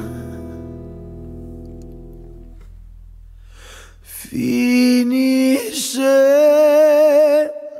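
Background music: a held chord fades away, then after a brief pause a new phrase begins with long held notes, the top note wavering with vibrato.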